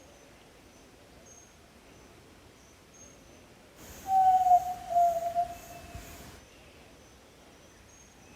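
Yellow-legged tinamou (jaó-do-sul) giving one low, clear whistled note of about two seconds, starting about halfway in and falling slightly in pitch. Behind it are faint insects and thin, high bird chirps.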